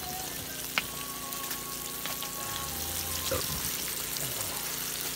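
Floured fish steaks frying in oil in a pan, a steady sizzle, with one sharp click about a second in.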